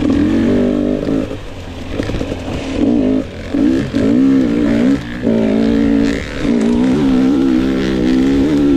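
2022 GasGas EX 250 two-stroke fuel-injected (TPI) dirt bike engine being ridden, the revs rising and falling as the throttle opens and closes several times.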